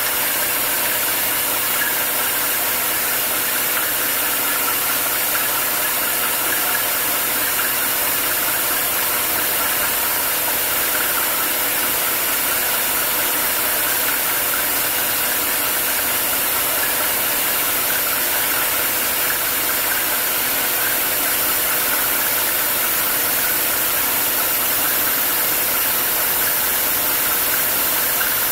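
Vertical milling machine running steadily as its end mill cuts a quarter-inch-deep undercut into annealed 4140 steel. It makes an even mechanical hum with a constant tone and does not change.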